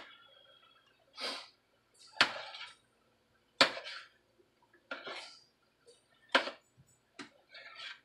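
A stirring utensil scraping and clinking against the side of a pot of thickening stew, in about seven short separate strokes spaced a second or so apart.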